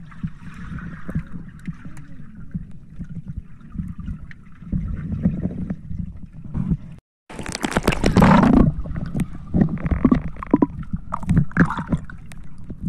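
Muffled underwater rumble and gurgling of water moving around a camera held below the surface. About seven seconds in the sound cuts out for a moment, then a louder rushing, splashing noise follows for about a second and a half, with shorter swishes and knocks after.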